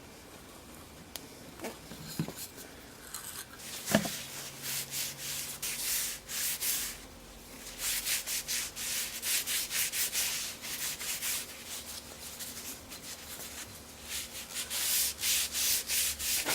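Hand sanding wood: quick back-and-forth sandpaper strokes, about three a second, in three runs with pauses between them. A single sharp knock comes about four seconds in.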